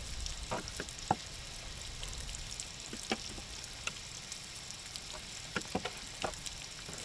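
Fillet knife slicing through a blackfin tuna fillet on a plastic fish-cleaning table, cutting out the bloodline. It makes about a dozen short, irregular clicks and taps as the blade cuts and meets the board.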